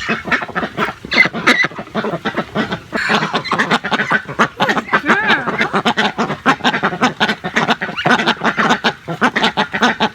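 Domestic ducks quacking in quick, continuous runs, several calls overlapping.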